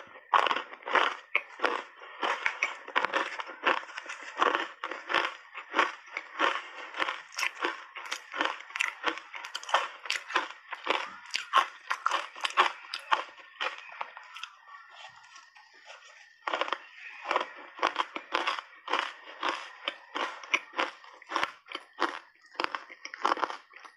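Ice cubes coated in matcha powder being chewed up close, a dense, irregular run of sharp crunches. It lulls briefly about two-thirds of the way through, then the crunching starts again.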